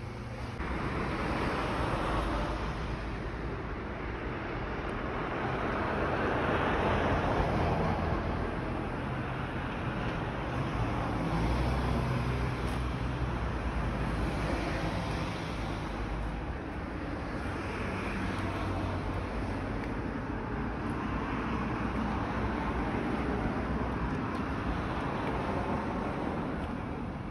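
Vehicle traffic passing: a continuous rushing rumble that swells and eases several times as vehicles go by.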